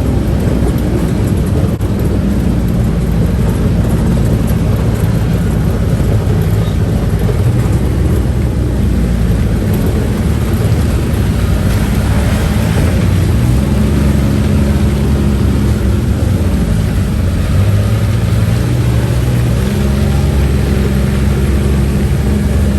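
A UTV's engine running as it drives, loud and steady, its note shifting up and down a little with the throttle.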